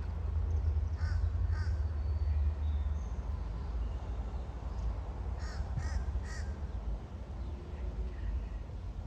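A bird calling: two short harsh calls about a second in, then three more in quick succession around the middle, over a steady low rumble.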